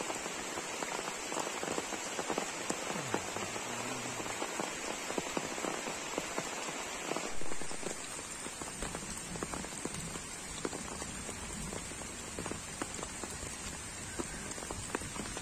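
Steady rain falling on the surface of a pond, many small drop hits heard throughout, with a brief louder noise about halfway through.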